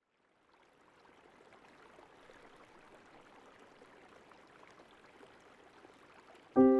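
A faint, steady rushing noise fades in. About six and a half seconds in, a loud chord of music strikes and rings on as the soundtrack begins.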